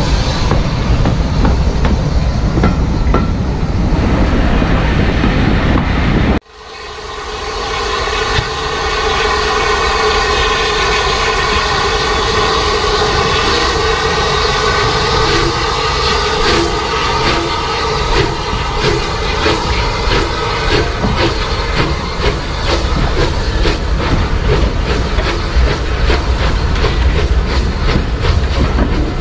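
Steam locomotive 34028 Eddystone, a rebuilt Bulleid West Country class Light Pacific, pulling its train out of the station, followed by the coaches rolling past with a clickety-clack of wheels over the rail joints. The sound cuts out abruptly about six seconds in and comes straight back.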